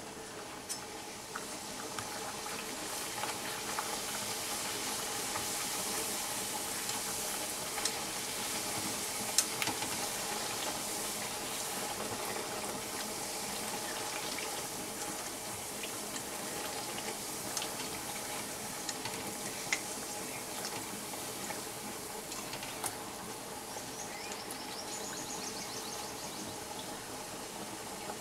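A luchi deep-frying in hot oil in a steel wok, the oil sizzling steadily around the dough as it puffs, with a few light clicks of a perforated steel spatula against the pan.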